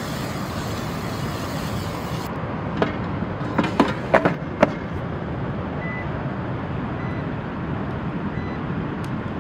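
An air fryer basket sliding into its drawer with a few clicks and knocks, then two short beeps from the air fryer's touch panel as it is set. A steady background rush runs underneath.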